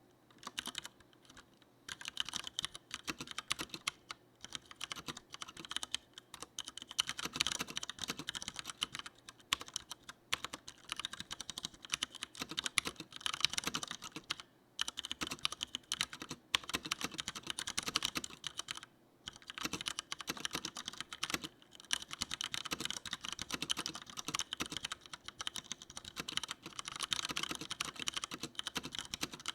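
Fast typing on a Leopold FC900R mechanical keyboard with tactile Cherry MX Brown switches: a dense run of key clacks going in spurts of a few seconds, broken now and then by brief pauses.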